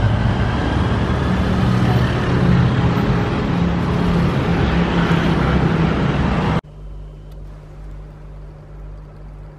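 Street traffic noise, with motorbike and car engines running. It cuts off suddenly about two-thirds of the way through to a much quieter, steady low hum.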